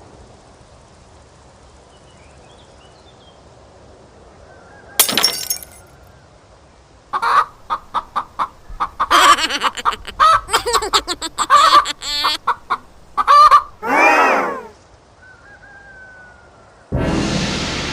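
A chicken clucking and squawking in a rapid run of short calls, ending in one longer squawk. A sharp crack comes before the calls, and a loud noisy crash starts near the end.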